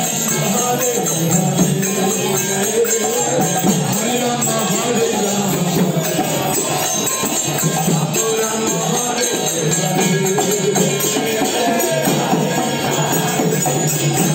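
Kirtan: a group of voices singing a devotional chant together over a mridanga drum and jingling metal percussion.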